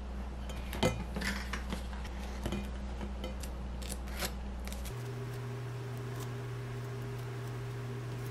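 A spreader scraping cream cheese across the crust of a toasted chocolate bagel: short scrapes and clicks through the first half, the loudest a sharp tap about a second in, over a steady low hum.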